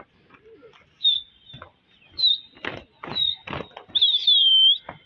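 Birds calling: repeated high chirps and whistles, with one longer falling, wavering whistle near the end, mixed with several short sharp sounds.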